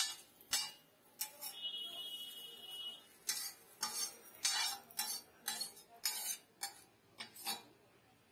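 Metal spatula scraping across a flat iron griddle in quick strokes, about two a second, as fried noodles are scraped up. The scraping stops shortly before the end.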